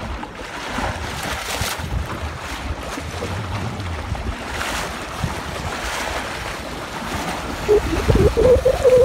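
Wind buffeting the microphone and water rushing past the hull of a sailing keelboat under way in a fresh breeze. Near the end the gusts grow louder and a short wavering tone is heard.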